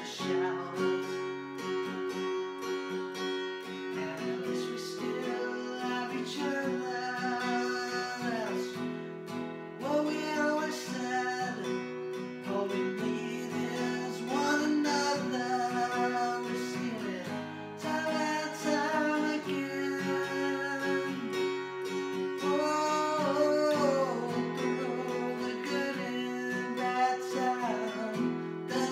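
A man singing while strumming an acoustic guitar. The voice holds long notes that slide off at their ends, over steady strummed chords.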